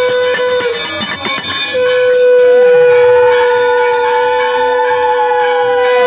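Conch shell (shankha) blown for worship: a short blast, then about two seconds in a long, steady blast held at one pitch.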